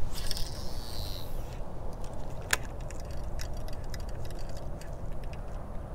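Baitcasting reel being cast and retrieved: a whir as the spool pays out line for the first second and a half, a sharp click about two and a half seconds in, then a run of light irregular ticks as the reel is cranked.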